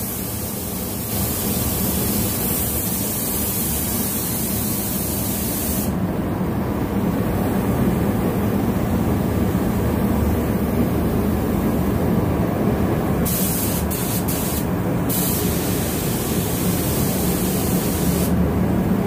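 Air spray gun hissing steadily as it sprays matte clear coat onto a car's hood, getting louder about a second in, with a steady low hum underneath. The gun has a 1.3 mm nozzle at 1.8 bar air pressure.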